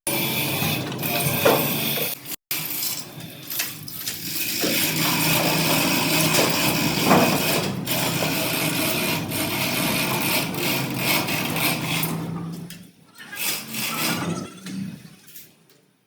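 A power tool running steadily for several seconds over workshop noise, with a short break near the start and fading out near the end.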